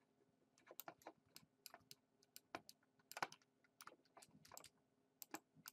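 Faint, irregular clicking and tapping of a computer keyboard and mouse, starting about half a second in.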